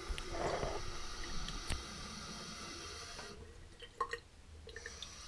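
Tap water running from a bathroom faucet into a porcelain shaving-soap bowl, wetting the hard shaving soap before lathering; the flow stops abruptly about three seconds in, followed by a few light clicks of the tap lever and bowl.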